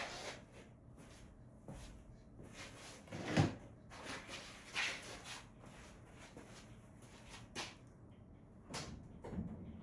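Scattered knocks and clatter of metal parts being handled and set in place during shop fabrication work, with a few quieter scrapes between them. The loudest is a dull thump about three and a half seconds in.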